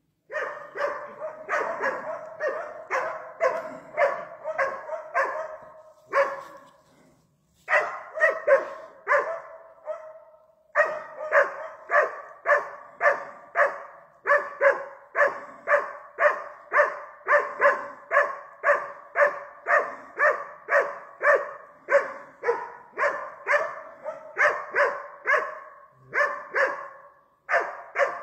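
Hunting dog baying at a wild boar: rapid, steady barks about two a second. They break off briefly about six seconds in and again near the end.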